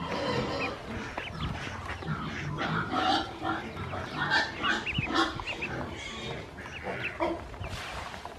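A group of ducklings peeping, many short high chirps overlapping one another, with lower animal calls underneath.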